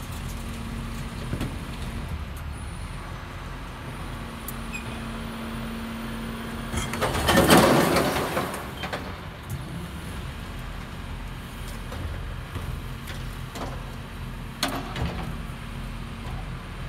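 Rear-loading garbage truck running with a steady low hum while its lifter tips a large metal waste bin into the hopper; about seven seconds in, a loud rushing burst lasting about two seconds as the bin is emptied. A few sharp knocks follow near the end as the bin is handled.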